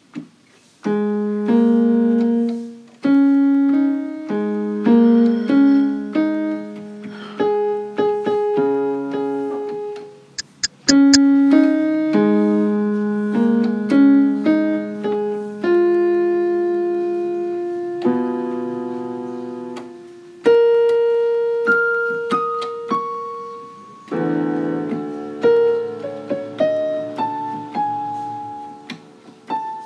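Piano music: single notes and chords struck one after another, each dying away.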